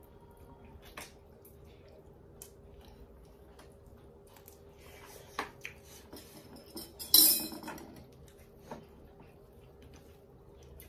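Eating by hand from metal plates: scattered small clicks and clinks of fingers and food against the plates and bowls, with one louder, longer noise about seven seconds in.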